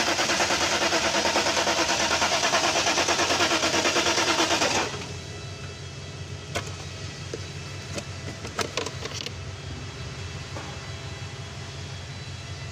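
Mercedes S500 engine running with a loud, fast, even rhythm that cuts off abruptly about five seconds in. A steady low hum and a few sharp clicks and taps follow.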